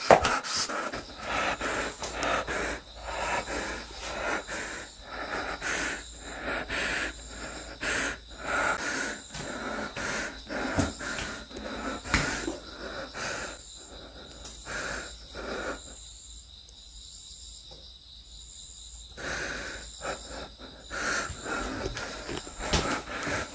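A person breathing hard and noisily, with scattered rustles and knocks of movement; it goes quieter for a few seconds past the middle.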